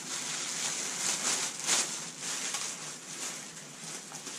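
Wrapping paper rustling and crinkling in uneven handfuls as it is pulled out of a packed backpack, with a louder crinkle a little under two seconds in.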